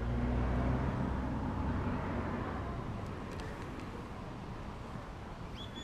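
A motor vehicle passing, its low engine hum loudest about a second in and fading away over the next couple of seconds against steady outdoor noise. A short high chirp sounds right at the end.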